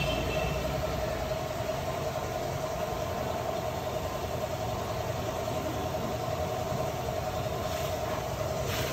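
Toyota Prius running in the cabin: a steady, even hum with one constant mid-pitched tone throughout.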